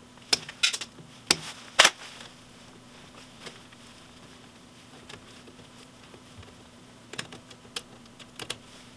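Wire strippers snipping and clicking as electrical wires are cut down and worked at a circuit breaker. Four sharp clicks in the first two seconds, then a few fainter ones near the end, over a faint steady hum.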